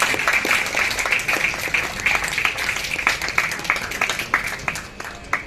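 A crowd of people applauding, the clapping thinning out and dying away near the end.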